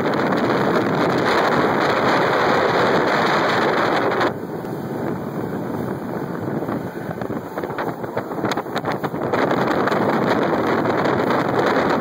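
Wind buffeting the microphone on a small motorboat under way, with the rush of the boat and water beneath it. The wind noise eases about four seconds in and comes back loud about nine seconds in.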